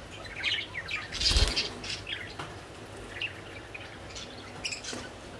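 Lovebird fluttering its wings in a wire cage, one brief loud flurry about a second in. Short high bird chirps are scattered through the rest.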